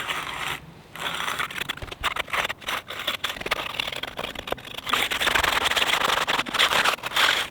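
Hand concrete groover scraping through the wet slab surface as it cuts a control joint: a continuous rasping scrape with a brief break just under a second in, growing louder over the last couple of seconds and stopping just before the end.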